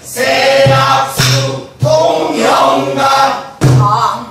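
A pansori danga line sung by several voices together, with low strokes on buk barrel drums struck with sticks: three about half a second apart near the start, and another near the end.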